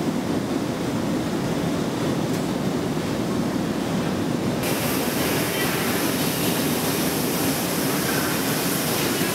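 Steady rushing roar of glassworks workshop noise while hot glass is worked. About halfway the noise suddenly turns brighter and hissier.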